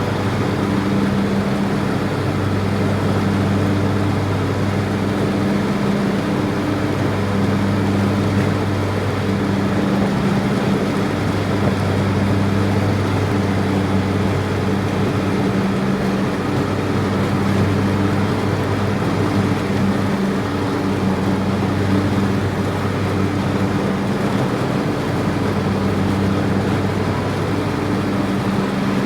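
A steady, loud, low mechanical hum, with higher droning tones that fade in and out every second or two.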